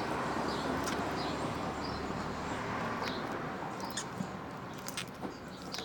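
Slime being pressed and squished into its container, giving small wet clicks and pops that grow more frequent in the second half, over a steady background hiss, with faint short chirps recurring every second or so.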